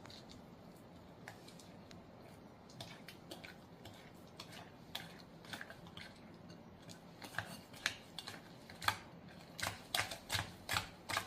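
A utensil clicking and scraping against a bowl while butter, sugar, flour and egg are mixed into a batter. The clicks are sparse at first and come faster and louder, a few a second, in the last few seconds.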